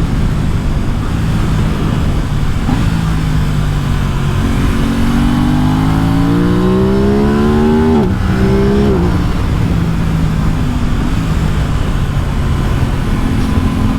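Aprilia RS 660's parallel-twin engine under load, its pitch climbing for a few seconds, dropping sharply about eight seconds in, rising briefly and dropping again a second later, as at gear changes, then running at a steadier, lower pitch.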